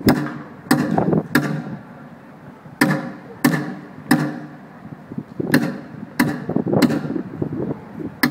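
A drum struck in a steady pattern of three beats and a pause, each beat echoing in a large hard-walled space.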